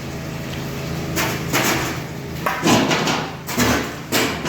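Kitchen work noises: about six short scraping or clattering sounds from about a second in, over a steady low hum.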